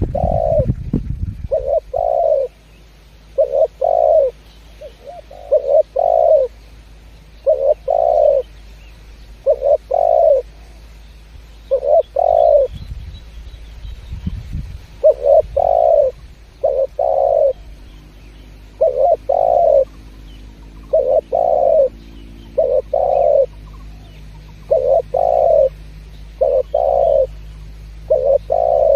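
Spotted dove (tekukur) cooing steadily: repeated phrases of two or three low coo notes. There is a low rumble at the start and briefly near the middle.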